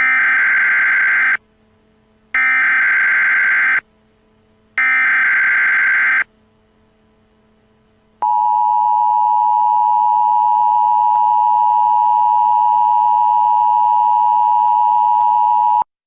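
Emergency Alert System opening: three screeching bursts of SAME header data tones, each about a second and a half long with a short gap between them. After a pause of about two seconds comes the two-tone EAS attention signal, held steady for about seven and a half seconds and cutting off sharply.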